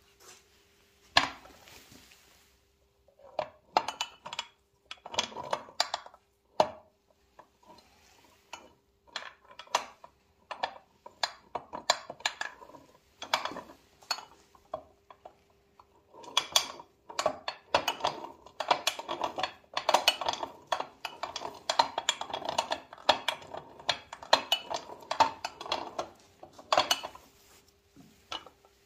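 Irregular metallic clinks and knocks of a big-bore crankshaft and its connecting rod being turned and handled by hand in a bare aluminium scooter crankcase half, sparse at first and coming thick and fast in the second half.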